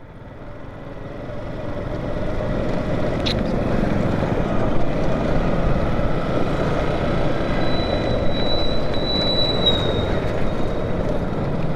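Motorcycle riding in slow traffic over a brick-paved road, heard from the rider's camera: a steady wash of engine and road noise that builds over the first few seconds as the bike moves off. A thin, steady high whine comes in about two-thirds of the way through.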